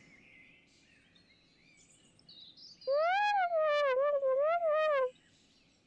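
Faint birdsong ambience, then about three seconds in an elephant trumpets for about two seconds, a loud call whose pitch rises, dips and wavers up and down before it cuts off.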